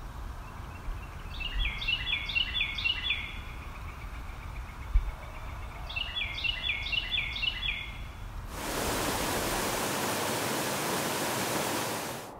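A songbird sings a short phrase of four or five quick downslurred notes, twice, about five seconds apart. About eight and a half seconds in, a steady rushing hiss takes over, louder than the birdsong, and stops near the end.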